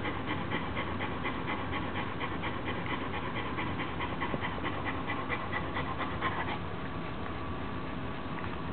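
German Shepherd panting in a quick, even rhythm of about three to four breaths a second, stopping about six and a half seconds in.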